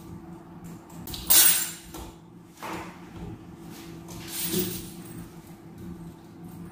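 Kitchen handling noises: a sharp clatter about a second in, then a few softer knocks and clinks, over a steady low hum.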